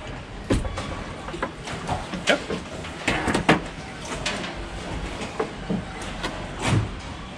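Irregular clicks and knocks of wire strippers and electrical wire being handled, the loudest about two and three and a half seconds in, over a steady low rumble.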